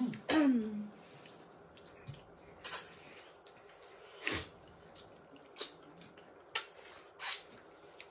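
Close-up eating sounds: a person chewing food, with about half a dozen short crunchy bites and mouth clicks one to one and a half seconds apart. A brief voice-like sound falls in pitch just at the start.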